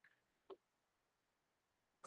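Near silence, broken by two faint, brief scuffs about half a second apart from a blackboard eraser wiping a chalkboard.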